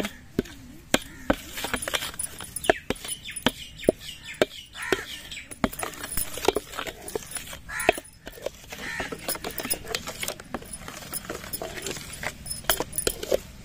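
A plastic ladle stirring thick cream in a steel bowl: irregular clicks and scrapes as it knocks and drags against the bowl.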